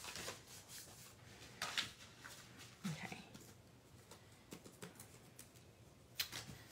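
Faint handling of cardstock: folded card bases being slid and set down on a cutting mat, with a few light taps and paper rustles.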